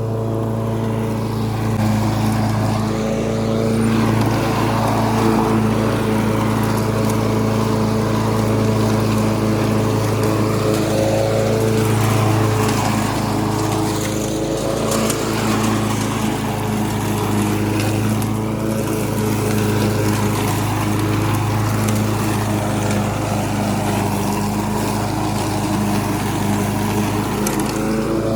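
Walk-behind lawn mower's small engine running steadily while mowing, its note wavering slightly now and then.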